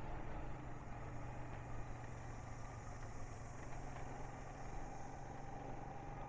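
Steady engine hum of a moving motor vehicle, with road noise underneath and a faint steady whine joining about two-thirds of the way through.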